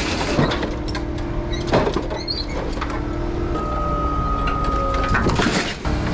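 Liebherr scrap material handler running, its diesel engine humming steadily under a hydraulic whine, with a few sharp clanks of metal scrap as the grapple works the pile.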